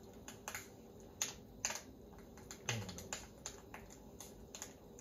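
Irregular sharp ticks and crackles, a few a second, from a mess tin heating over a burner as an improvised pizza oven, its contents starting to smoke.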